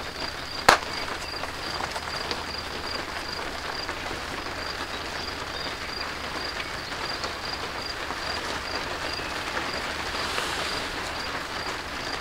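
Steady rain falling, an even hiss throughout. A faint high chirp repeats about twice a second over it, and a single sharp click comes about a second in.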